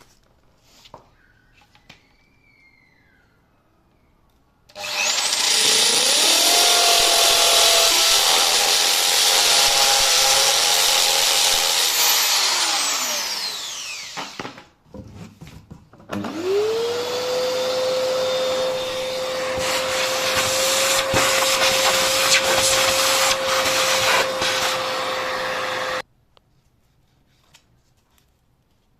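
Electric drill boring the holes for the threshold's screws, in two long runs. The first winds down with a falling whine; the second spins up quickly to a steady pitch and stops abruptly.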